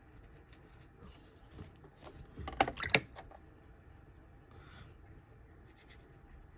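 A painting board with a watercolour card taped to it being turned around on a desk: a short cluster of sharp clicks and knocks about two and a half seconds in, with faint handling sounds either side.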